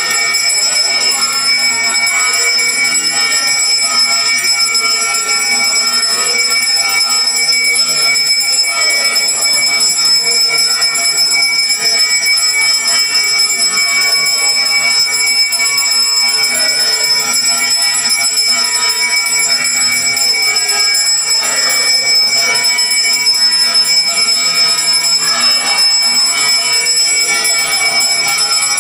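Brass hand bell (puja ghanta) rung without pause during aarti: a continuous bright metallic ringing with steady high overtones.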